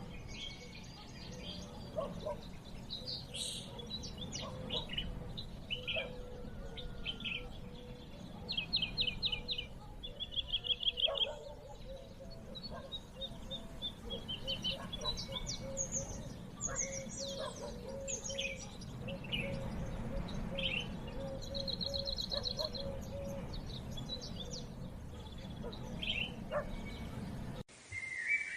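Several birds chirping and calling, with short high notes and fast trills overlapping over a steady low background hum.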